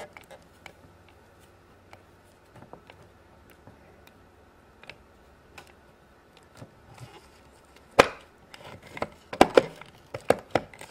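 A plastic toy pizza-oven mold being handled while dough is pressed into it: faint scattered clicks and rubbing, then a sharp plastic knock about eight seconds in and a quick run of clicks and knocks near the end as the oven is handled and set down.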